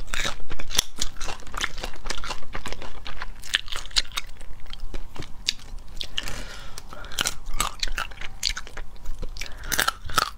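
Close-miked crunching and crackling of spicy crayfish shells being cracked apart and bitten, with chewing of the meat: a dense, irregular run of sharp snaps and crackles.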